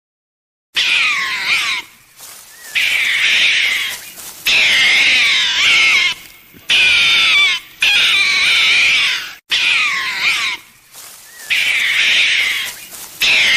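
Many animals calling at once in high, wavering, overlapping cries, in segments of a second or two that start and stop abruptly.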